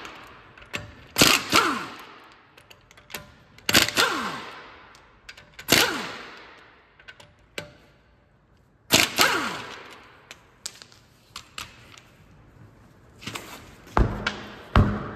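Impact wrench loosening the 17 mm wheel bolts: four short rattling bursts, each followed by the motor winding down in a falling tone, with small metallic clicks between them. A few heavy thuds near the end.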